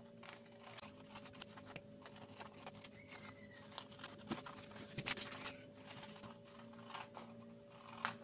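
Paper scissors snipping through a sheet of paper, a faint, irregular run of short snips with the paper rustling as it is turned.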